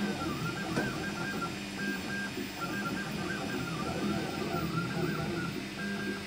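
FDM 3D printer at work: its stepper motors whine in repeated rising and falling glides as the printhead moves around the part's curves, over a steady low hum.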